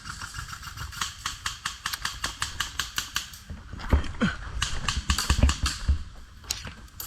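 Airsoft guns firing in rapid runs of sharp clicks, about seven shots a second at their fastest, with a few dull thumps about two-thirds of the way through.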